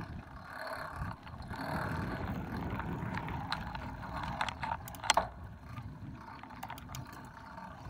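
Bicycle rolling over a gravel drive: a steady rumble of tyres on gravel, with scattered clicks and rattles from the bike and a sharp clack about five seconds in.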